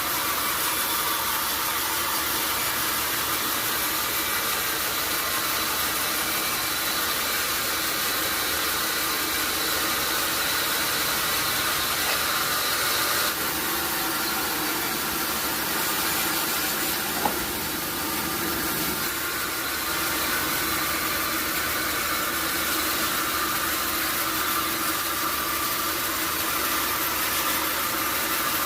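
Sawmill machinery running steadily: a constant mechanical hum and hiss with a few steady tones. The tone shifts for a few seconds around the middle, and there is one sharp click about 17 seconds in.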